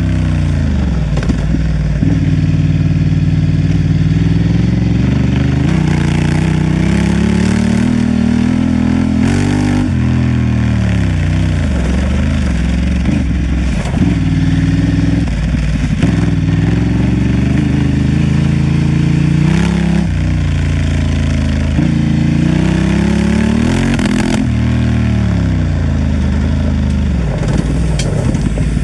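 Honda Transalp XL750's parallel-twin engine running under way, its pitch climbing and dropping back every few seconds as the throttle and gears are worked.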